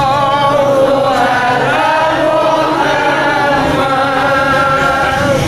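A group of voices chanting a devotional song together in long, drawn-out notes.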